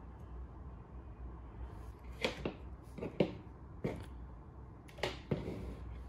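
Handling noise on a breadboard: about half a dozen sharp clicks and taps as jumper wires and a small amplifier module are pulled off and handled, over a low steady hum.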